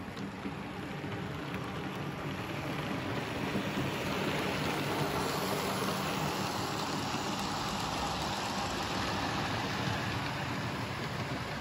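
00 gauge model trains running: small electric motors whirring and wheels rolling on the track in a steady hiss, louder from about three seconds in as the coaches pass close.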